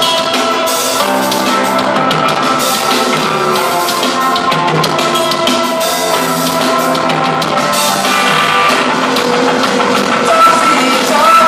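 Live pop-punk band playing loud: a drum kit with dense cymbal hits over electric guitars and bass, with no lead vocal until a rising sung line near the end.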